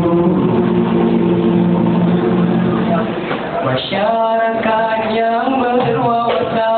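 Male nasyid vocal group singing in close harmony through microphones and a PA: a chord held for about three seconds, then a new sung phrase beginning about four seconds in.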